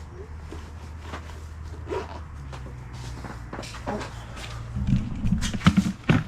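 Footsteps and handling knocks, with a cluster of loud thumps near the end, over a steady low hum.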